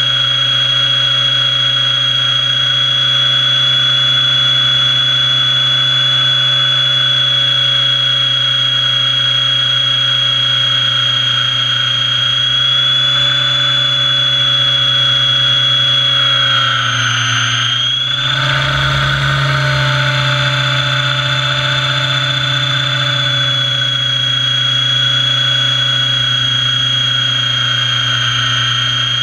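Radio-controlled model helicopter running in flight, heard from a camera mounted on its fuselage: a steady high whine over a low hum from the motor and rotors. Its pitch dips briefly about two-thirds of the way through.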